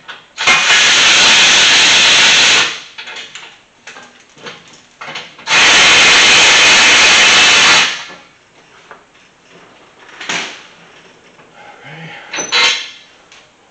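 A handheld cordless power tool runs in two bursts of about two seconds each, undoing the exhaust downpipe bolts, followed by a couple of light knocks near the end.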